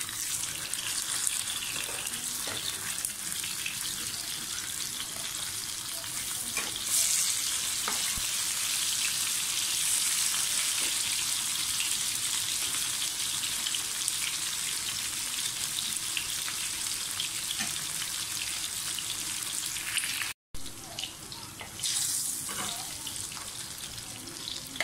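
Chicken chapli kababs shallow-frying in hot oil in a frying pan: a steady sizzle that grows briefly louder about seven seconds in.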